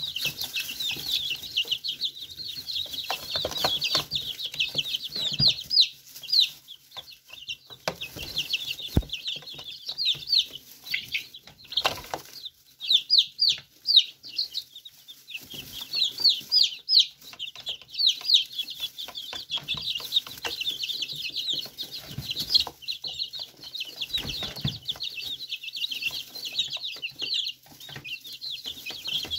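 A brood of young chicks peeping, many short high chirps overlapping almost without a break, easing off briefly a few times. Scattered light taps sound among the peeps.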